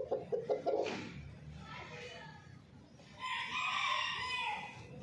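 Rooster crowing once, about three seconds in, in a single call of about a second and a half. A few quick, short clucks come in the first second.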